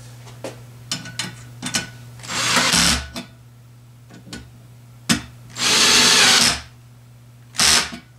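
Power drill-driver run in three short bursts, the middle one the longest, driving in screws to fasten the ceiling fan's housing, with small clicks and knocks of handling between the bursts.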